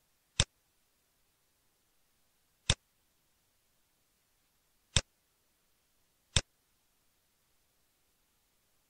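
Four sharp computer mouse clicks, the first three about two seconds apart and the last one soon after the third.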